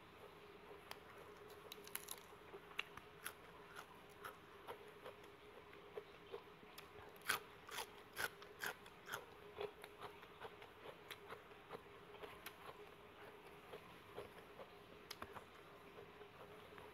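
A person chewing and crunching food, with a run of louder crunchy bites about seven to nine and a half seconds in, over a faint steady hum.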